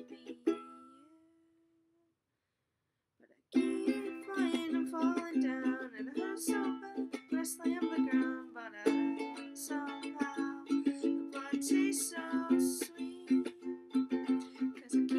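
A ukulele strummed, with a woman singing over it. The first chord rings out and dies away, then after about a second and a half of silence the strumming and singing start again in a steady rhythm.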